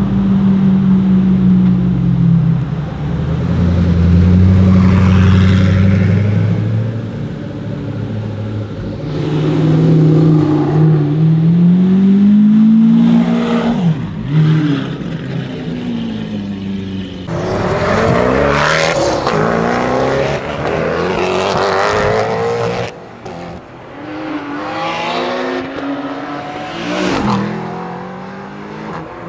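Supercar engines driving off and revving. The first is the Koenigsegg Agera RS's twin-turbo V8, running low and steady as it pulls away. After that come several cars in turn, revving hard, with pitch rising and falling through gear changes.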